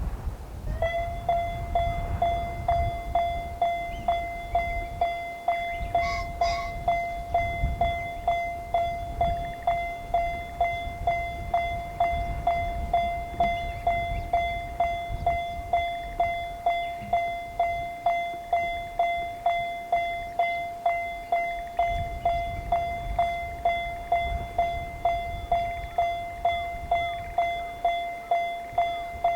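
Japanese railroad crossing alarm starting up about a second in, then ringing steadily with its kan-kan strikes at just under two a second: the signal that a train is approaching.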